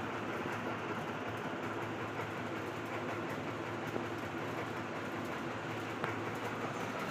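Puja Hi-Breeze ceiling fan running on inverter power: a steady hum over a haze of motor and air noise.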